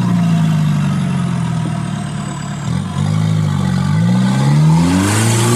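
Off-road vehicle engine running steadily, then revving up with a rising pitch from about three seconds in.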